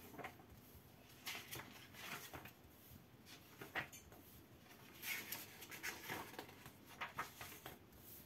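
Faint paper rustling from the pages of a paperback comic book collection: a page being turned and a hand brushing over the printed pages, in a series of short rustles.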